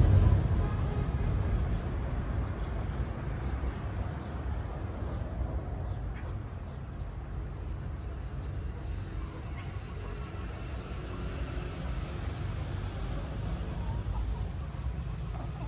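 Outdoor ambience: a steady low rumble, a quick run of short high chirps, about three a second, in the first half, and chickens clucking near the end.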